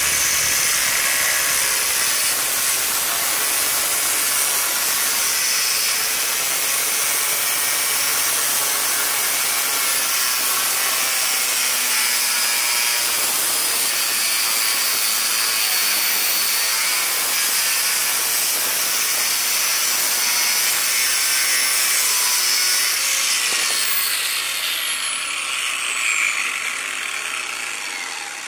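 Angle grinder's cutting disc grinding through a metal watch case and crystal, a loud, steady, high-pitched grinding. About 24 seconds in, a tone falls in pitch and the sound tapers off as the watch is cut through.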